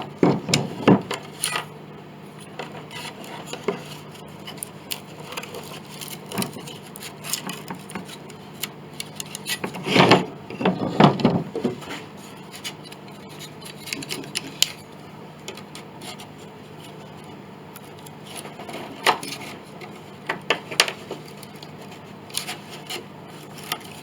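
Hand tools and loose wooden pieces being worked and handled: scattered knocks, clinks and scraping, with a cluster of louder knocks about ten seconds in and single knocks near nineteen and twenty-one seconds.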